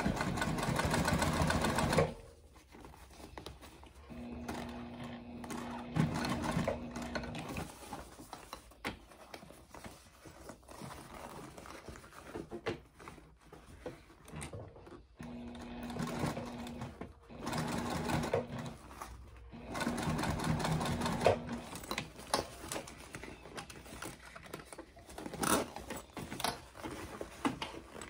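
Juki TL2010q single-needle sewing machine stitching through cork and quilted fabric in several short runs, stopping and starting as the bag is turned under the foot.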